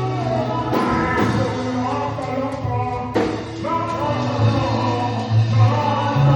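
Gospel praise music: voices singing together over a band with steady bass, and a couple of sharp percussion hits.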